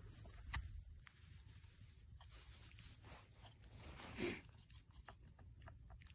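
Faint handling noise of hands on a blasting machine's screw-down binding posts and shot-line wires: small clicks and scratchy rubs over a low rumble, with a short louder rasp about four seconds in.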